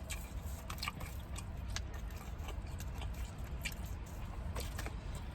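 Close-miked chewing of pizza: soft, irregular wet mouth clicks and smacks over a low steady hum.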